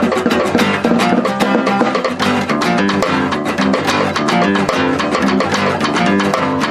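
Live acoustic band playing an instrumental passage between verses, with guitar strummed in rapid even strokes and no singing.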